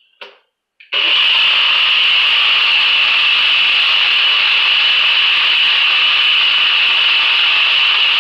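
NutriBullet personal blender running steadily with a high whine, blending a thick batter of oats, banana and milk while the cup is held pressed down. It starts about a second in, after a few light knocks of the cup being seated on the base.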